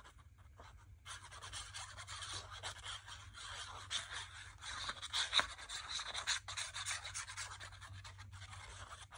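Paper rustling and crinkling in the hands while liquid glue is squeezed from a plastic squeeze bottle onto the back of a paper cutout, with small ticks and one sharper tick about halfway; it starts about a second in.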